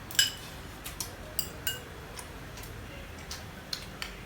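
Spoons clinking against dishes as people eat: a string of light, sharp clinks with a short ring, the loudest about a quarter second in.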